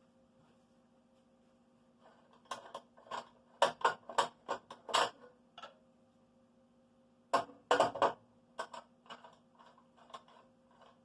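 A series of sharp clicks and knocks, as of hard objects being handled, in two clusters with lighter scattered ticks after, over a steady low hum.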